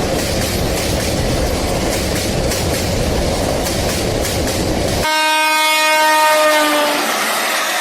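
Steady rumble of a running train, which stops abruptly about five seconds in as a train horn sounds, held for about two seconds and dropping slightly in pitch at the end.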